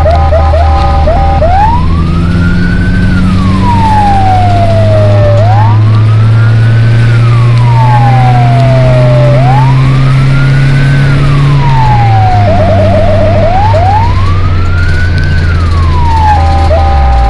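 Fire truck's electronic siren on a slow wail, rising and falling about every four seconds, with a fast warbling multi-tone pattern at the start and again near the end. It is heard from inside the cab over the truck's engine drone, which climbs slowly in pitch and then drops about twelve seconds in.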